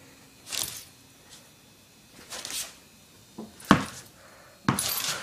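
A puppy moving about with a tennis ball on a hard floor: a few scattered scuffs and knocks, with one sharp knock a little before four seconds in and a burst of scrabbling near the end.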